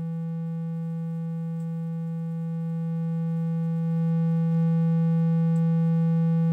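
A steady synthesizer note from a Korg Kronos, one low pitch with a stack of overtones, played through the Kronos's Stereo Dynamic Compressor. It grows louder from about two and a half to four and a half seconds in as the compressor's sensitivity is turned up, then holds.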